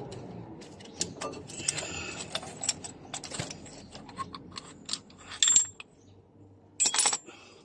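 Metal clicks, clinks and scrapes of hand tools against a brake caliper as its piston is pressed back into the bore, with two louder metallic clatters about five and a half and seven seconds in.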